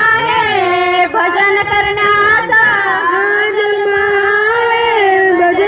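Women singing a Marathi devotional chant together, their voices held on long, slowly gliding high notes.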